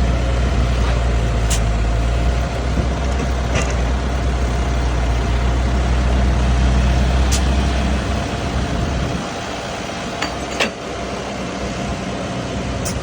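A motor running with a steady low rumble and a whine; the rumble drops away about eight seconds in. A few sharp clicks come at intervals.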